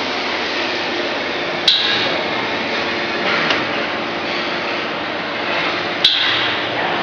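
Vacuum membrane press running in its automatic cycle: a steady, even rush of machine noise, broken by two sharp knocks about four seconds apart.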